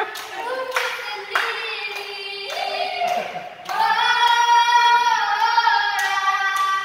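A young boy singing, ending on one long held note from about halfway through, with a few sharp clicks over it.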